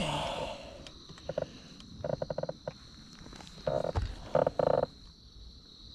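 Frogs croaking: a handful of short calls, some in quick pulses, over a steady high-pitched drone.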